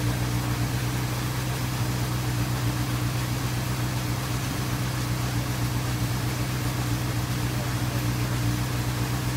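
A 2008 Honda CBF600's fuel-injected inline-four engine idling steadily with third gear engaged.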